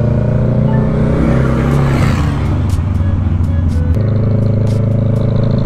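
Kawasaki Ninja 650 parallel-twin engine running under way, with wind rush on the rider's microphone. The engine note sags about two seconds in and changes abruptly about four seconds in.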